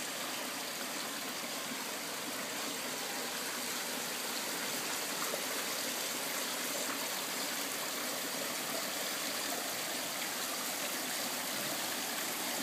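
Water running steadily into a garden fish pond, an even splashing that does not change.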